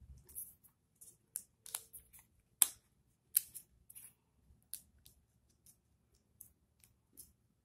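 Origami paper crinkling and crackling as fingers fold flaps to the centre and press the creases flat: a string of short, crisp crinkles, loudest about two and a half and three and a half seconds in.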